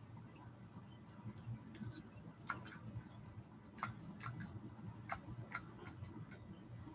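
Faint, irregular clicks and ticks, a few every second or two, over a low room hum.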